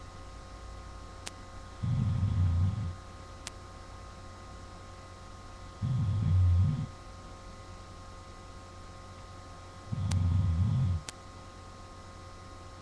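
A man snoring in his sleep: three low snores, each about a second long, about four seconds apart. A steady electrical hum runs underneath.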